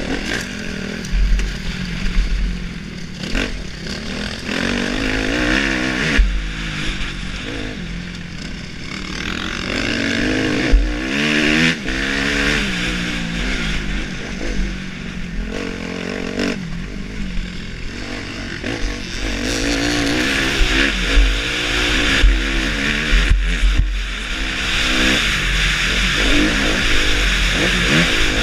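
Motocross bike engine heard from a helmet-mounted camera, revving up and dropping back again and again through the gears, with wind rushing over the microphone. A few sharp thumps stand out above the engine.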